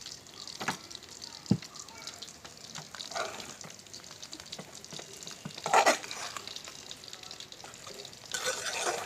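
Onion-tomato masala frying in a pan with a faint steady sizzle, just after coriander powder has gone in. It is being stirred, with a couple of sharp knocks in the first two seconds and three louder scraping strokes at about 3, 6 and 8.5 seconds.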